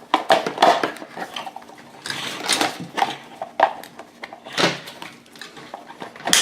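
Irregular clicks, knocks and clatter of hard plastic and metal parts being handled and worked on while a vintage oscillating fan's motor housing is taken apart, with one sharper click near the end.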